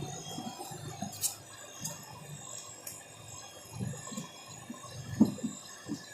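Light metallic clicks and clinks, a few sharp ones spread through, with soft handling bumps, the loudest about five seconds in, over a steady faint hum of several tones.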